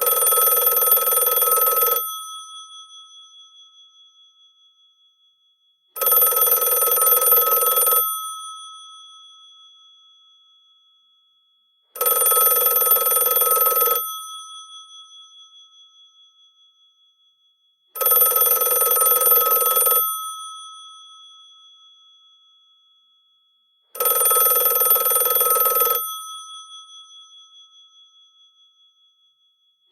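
Old telephone bell ringing in two-second bursts, one every six seconds, five times, each ring fading out slowly after it stops. This is the standard two-seconds-on, four-off ring cadence of an incoming call.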